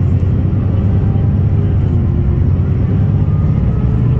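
SKSBus SA12-300 city bus heard from inside its passenger cabin while driving: a steady, loud low drone of engine and road noise, with a faint whine drifting slightly in pitch above it.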